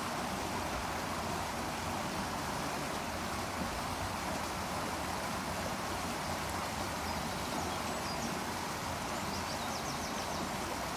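Steady, even rush of white water in a stream channel. A few faint high chirps come about two-thirds of the way in, and a quick run of them near the end.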